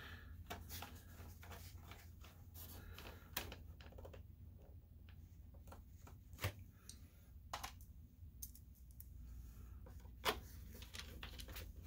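Small screwdriver driving screws into a projector's rear panel: faint, scattered clicks and scrapes, with a sharper click about six and a half seconds in and another near ten seconds.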